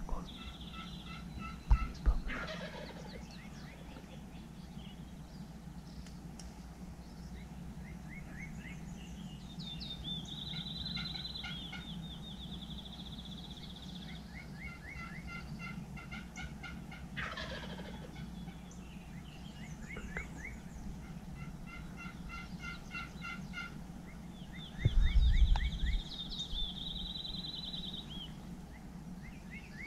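Wild turkey jakes gobbling, one rattling gobble after another about every five to six seconds, over a steady low rumble. A high trill runs twice between the gobbles, and a loud low thump comes about 25 seconds in.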